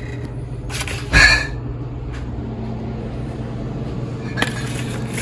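A short clatter of cookware about a second in and a sharp click near the end, over a steady low hum.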